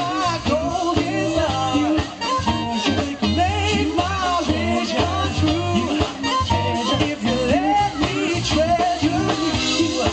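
Live band playing an upbeat pop-funk song, with drums, bass, guitar and piano together and a wavering melody line over the top.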